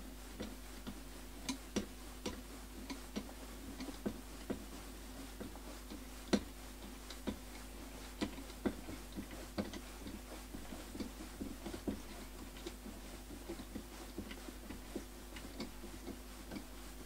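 Faint, even ticking, about two light clicks a second, over a low steady hum.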